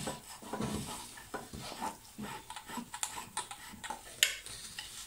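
Dishes being washed by hand at a sink: a sponge rubbing on a glass jar, with scattered light clinks and knocks of dishware and a sharper knock near the end.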